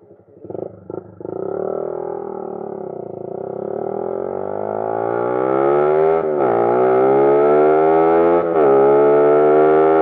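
Suzuki Raider 150 single-cylinder four-stroke engine through a Charama open-pipe exhaust, loud, pulling away and accelerating through the gears. After a couple of quick blips near the start, the pitch climbs steadily and drops briefly at two gear changes, about six and eight and a half seconds in.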